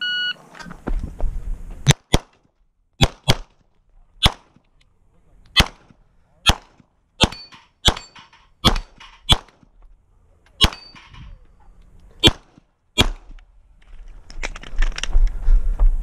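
Shot-timer start beep, then a 9mm Glock 17 MOS pistol firing about fifteen shots in quick pairs and single shots. A rushing noise comes in near the end.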